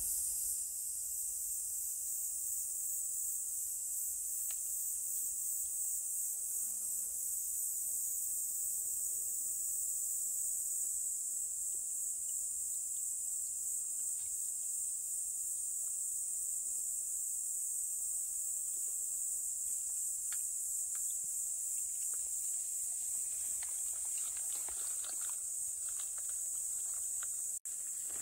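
Steady high-pitched chorus of insects, with a few faint ticks and rustles.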